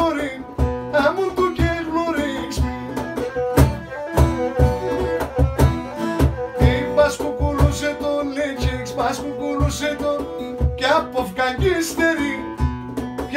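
Live Pontic folk music: a Pontic lyra with acoustic guitar strumming and a steady cajón beat.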